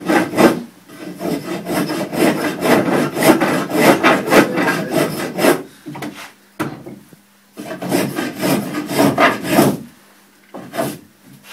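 Spokeshave shaving the edge of an ash hurley, chamfering off the corners: quick repeated scraping strokes of blade on wood, in two runs of about five and two seconds with a short pause and a lone stroke between.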